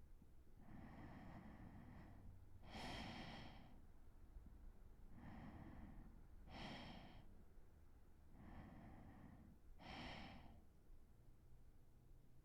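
Faint, slow breathing of a drowsy man settling to sleep: three breaths about three and a half seconds apart, each a soft in-breath followed by a fuller, sigh-like out-breath.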